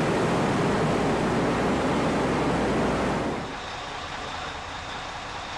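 Steady engine and machinery noise from a tracked amphibious assault vehicle moving across a ship's well deck. About three seconds in it drops to a quieter steady hum.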